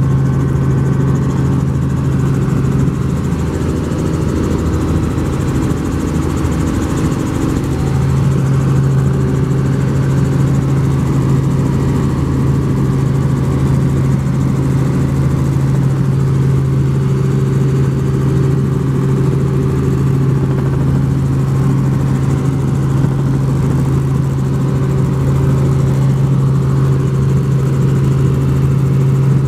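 Helicopter in flight heard from inside the cabin: a steady engine and rotor drone with a strong low hum that weakens briefly a few seconds in.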